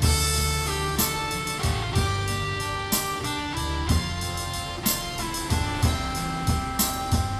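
Instrumental music with a steady drum-kit beat, a bass line and held melody notes.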